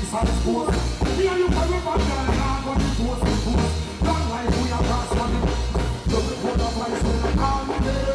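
Reggae band music playing, with a heavy bass line pulsing evenly under drums and other instruments.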